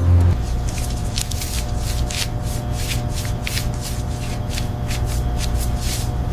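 Quick dry rustling sounds, a few each second, over a steady low hum.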